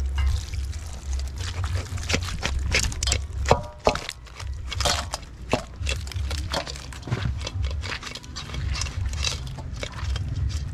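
Cooked blue crabs and sauce being tipped from a metal pot into a steel bowl of corn and potatoes: a run of irregular clicks, knocks and clatters as shells hit the metal and each other, over a steady low rumble.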